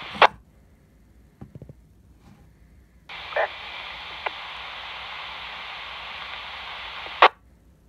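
Dual-band FM transceiver's speaker hissing with static from an open transmission that cuts off just after the start with a sharp squelch-tail burst. About three seconds in a second transmission opens as steady static hiss with no voice, and about four seconds later it ends abruptly in another loud squelch-tail burst.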